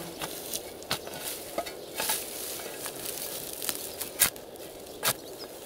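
A steel spade cutting into turf and matted dry grass: irregular crunching, rustling and scraping strokes, with a sharp crunch a little over four seconds in as the loudest.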